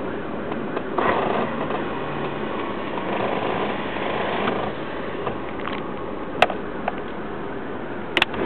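Car running steadily, with a few sharp clicks from the driver's-side dash area, one after another about six and a half and seven seconds in and a quick double click near the end. The clicking comes with the car's unpredictable intermittent stalling and check-engine light.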